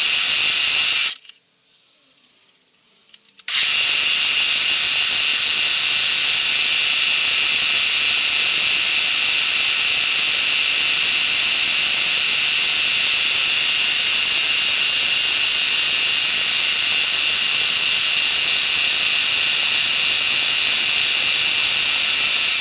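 Milling machine spindle running a small tap drill into a cast eccentric strap, a steady high whine, drilling the tap hole for a 2-56 threaded oil-cup hole. It runs for about a second, stops for about two seconds, then starts again and runs steadily.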